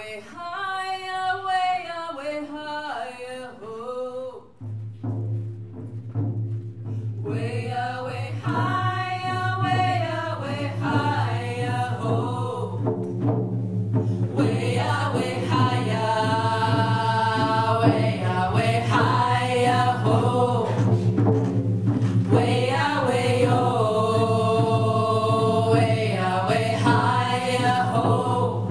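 A group of women singing together in a chant-like song, unaccompanied at first; about five seconds in, hand drums join with steady drumming under the voices.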